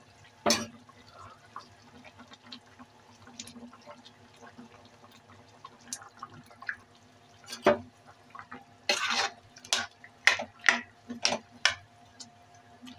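Spoon knocking and scraping against a metal kadhai while stirring a thick simmering curry: a few scattered knocks, then a quick run of them with a short scrape in the last few seconds.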